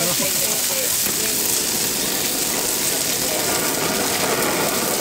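Skewered meat sizzling in oil on a hot flat-top griddle, with a hand-held canister gas torch hissing as it flames the skewers.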